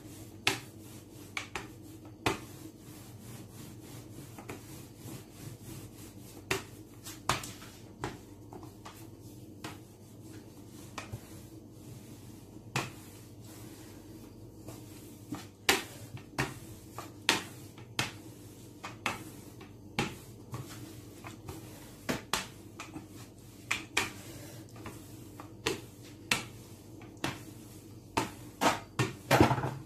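Rolling pin rolled back and forth over yeast dough on a floured worktop: a soft rubbing broken by scattered sharp taps and knocks, which come more often in the second half, over a faint steady hum.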